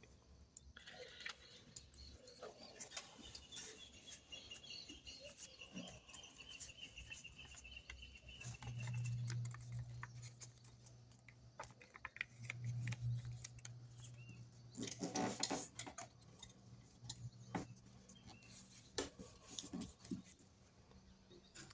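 A sheet of paper being folded in half and creased by hand on a wooden table: soft rustles, small crackles and scrapes, with a louder rustle about fifteen seconds in.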